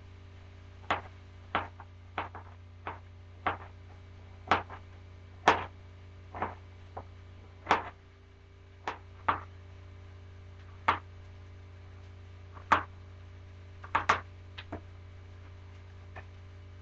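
Knife chopping food on a cutting board: about twenty sharp knocks at an uneven pace, over a steady low hum.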